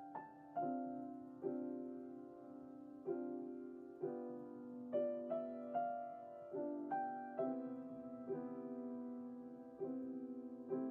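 Solo piano playing a slow, gentle melody, notes struck one after another and left to ring and fade.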